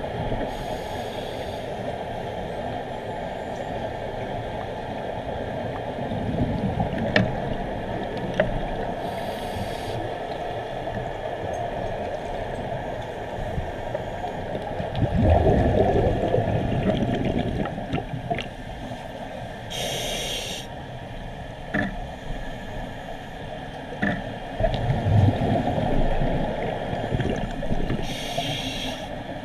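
Scuba regulator breathing heard underwater: a short hiss of inhalation about every eight to ten seconds, four times, and bursts of exhaled bubbles gurgling, the loudest about halfway through, over a steady underwater rumble with a few faint clicks.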